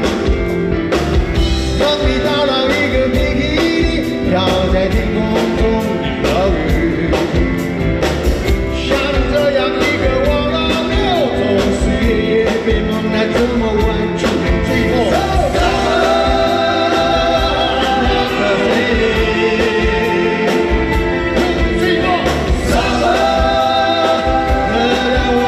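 A man singing a pop-rock song live into a microphone, backed by a big band with saxophones and drums over a steady beat.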